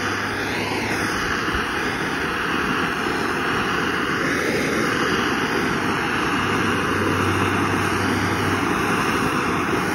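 Torch flame burning with a steady rushing hiss, played over sandblasted turbo turbine housings to burn off oil before they are coated.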